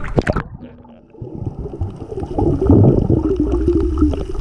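Camera splashing at the sea surface, then muffled underwater sound: a low rumble with a wavering drone that builds from about halfway in.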